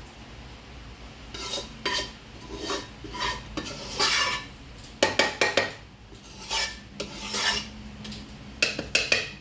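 A spoon scraping and spreading thick chicken masala over rice in a large aluminium pot, in a series of short strokes, with sharp clinks of the spoon against the pot about halfway through and again near the end.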